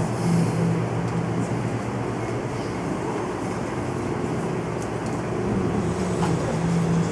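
Steady low hum and rumble of background noise, holding an even level with no distinct events.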